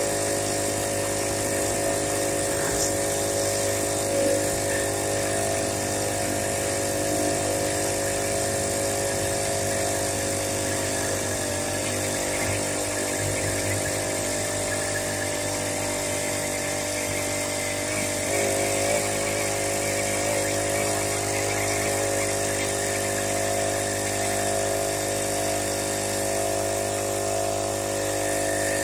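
Small motorized-bicycle engine running steadily at an even speed, with a couple of brief wavers in pitch past the middle.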